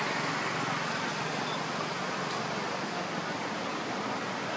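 Steady, even rushing noise with no distinct events or tones.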